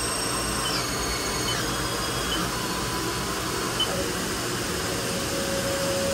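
A Haas VF-4 vertical machining center running: a steady whirring noise, with a high whine that steps down in pitch several times over the first two seconds or so. A steady lower hum comes in about five seconds in.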